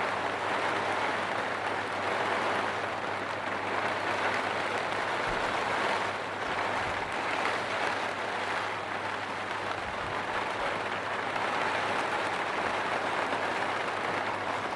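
Rain falling steadily in a dense, even patter.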